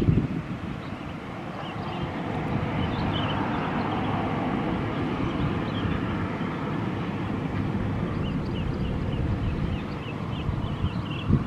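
Boeing 737-500's jet engines running on the ground, a steady rumble.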